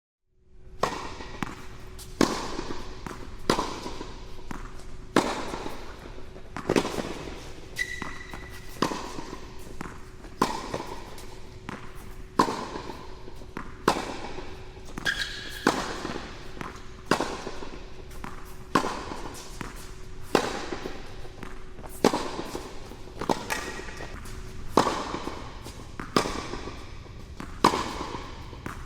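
Tennis ball rally: a steady series of sharp pops from the ball being struck by rackets and bouncing on the court, roughly one a second, each with a short ringing echo.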